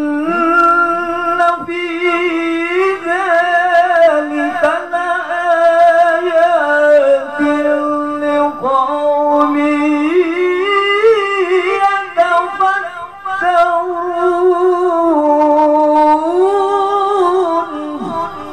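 A man's melodic Qur'an recitation (tilawah), sung through a handheld microphone: one long, ornamented phrase held around a steady pitch with many small turns, which stops shortly before the end.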